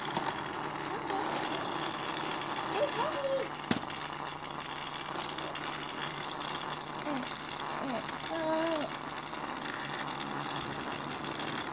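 Small battery-powered toy hamsters running on a plastic playset track, their little motors whirring with a gear rattle. One sharp click comes about four seconds in.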